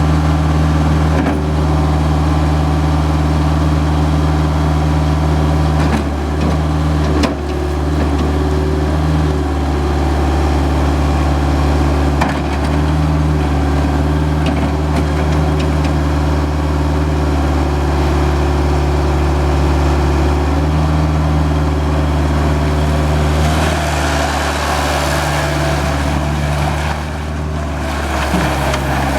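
Bobcat 843 skid steer loader's engine running steadily at a near-constant speed, with a few clicks and a harsher, noisier stretch near the end.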